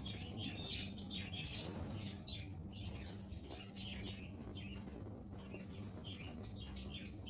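Small birds chirping in the background: many short, irregular high chirps, over a steady low hum.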